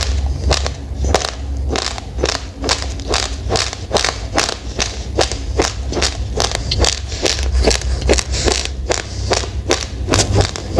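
Raw rice grains being crunched between the teeth: a steady run of sharp crunches, about three a second, over a low rumble.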